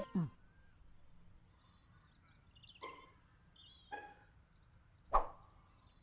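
Quiet meadow ambience with faint bird chirps, broken by a few short cartoon sound effects; the loudest is a sharp hit just after five seconds in.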